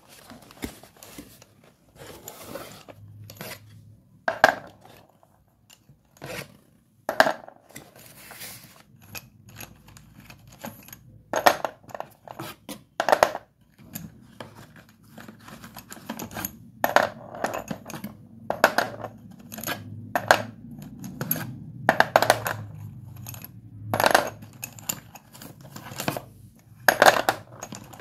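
White dustless chalk sticks being snapped and crumbled: a string of sharp, crisp snaps at irregular intervals, about nine loud ones, with quieter crunchy crackling between them.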